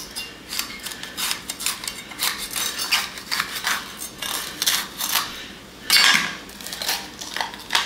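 Chef's knife cutting around the stem and core of a green bell pepper on a plastic cutting board: a run of short crisp crunches and scrapes, the loudest about six seconds in.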